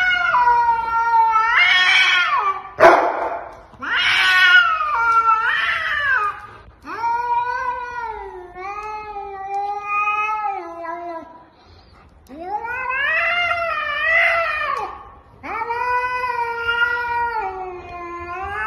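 A cat yowling in long, wavering, drawn-out calls, each a second or two long, one after another with a short pause near the middle. This is the defensive caterwaul of a cat facing down another animal. A sharp click comes about three seconds in.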